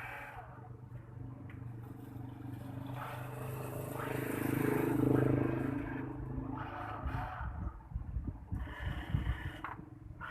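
Small electric gear motors of a homemade remote-control toy excavator whirring, swelling louder about four to five seconds in and then easing off. A run of rattling clicks and clatter follows near the end.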